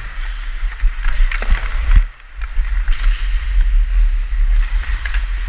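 Ice skates carving and scraping across a rink, with wind rumbling on a helmet-mounted GoPro microphone. A few sharp knocks stand out.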